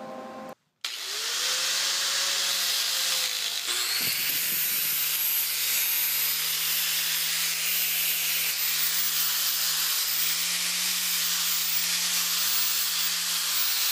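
Angle grinder grinding the edge of a steel plate under load: a steady, loud hiss over the motor's low hum, starting about a second in.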